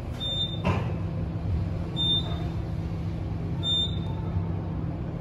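Otis Gen2 traction elevator car descending, with a steady low hum of the ride. Three short high beeps about 1.7 seconds apart are the car's floor-passing tone as it goes by each floor.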